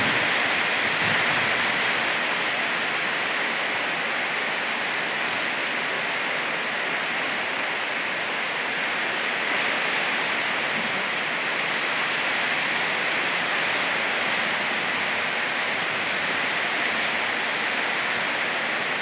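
Rain falling steadily in a sudden storm: an even hiss with no breaks.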